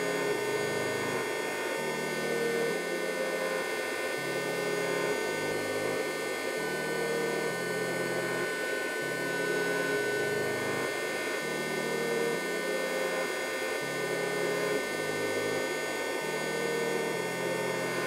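Background music with a slow, stepping bassline over a steady electrical hum.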